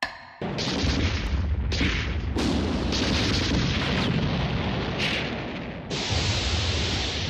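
A barrage of heavy explosions going off one after another and merging into a continuous rumble, starting abruptly about half a second in.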